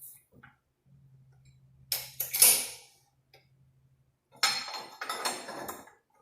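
Metal transmission parts and a spring-compressor tool clanking and rattling against each other, a loud clatter about two seconds in and a longer run of clinks near the end, with a faint steady low hum between them.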